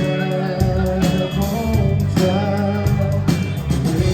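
A live rock trio of guitar, bass and drums playing an instrumental passage, with regular drum hits under sustained guitar notes.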